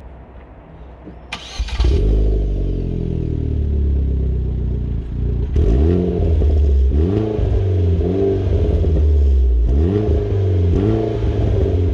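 2016 Opel Corsa OPC's 1.6-litre turbocharged four-cylinder, heard at its twin exhaust tips, with a modified exhaust. It is cranked and started about a second and a half in, then idles fast and slowly settles. From about halfway it is revved in a string of throttle blips, each rising and falling.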